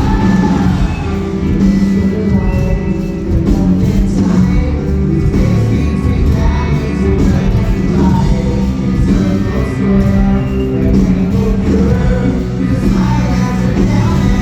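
Post-hardcore rock band playing loudly live in a large hall, with a singer's vocals over the full band.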